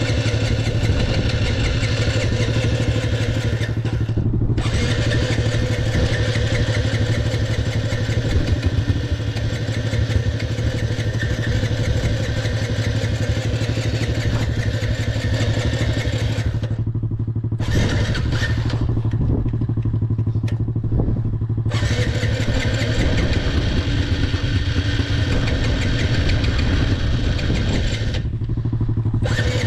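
Dirt bike engine idling steadily, a low even hum.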